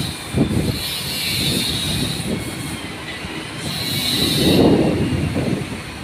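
Workshop noise: a steady mechanical rumble with two spells of high metallic squealing, each about a second long, and a louder low rumbling swell near the end.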